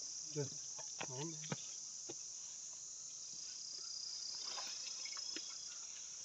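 Steady high-pitched insect chorus with a continuous shrill hum, and a few brief faint voices in the first second and a half.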